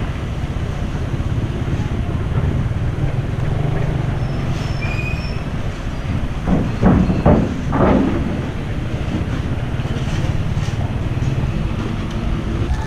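Motorcycle engine running at low speed, with wind and road noise from the ride over rough concrete; two louder surges come about seven and eight seconds in.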